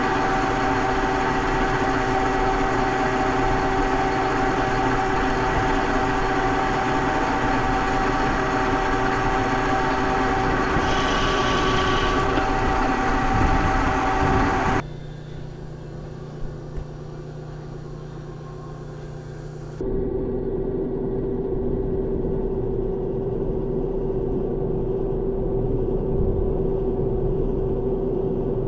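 Metal lathe running steadily while turning a steel bushing, with a steady whine over a dense hum. About halfway through the sound cuts abruptly to a quieter low hum with a couple of faint clicks, and after a few seconds a steady machine tone returns.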